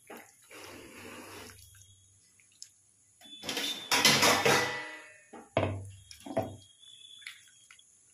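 Water sloshing and splashing in a plastic tub as hands squeeze and rub soaked dried fish pieces to wash them, in several bursts, the loudest about four seconds in.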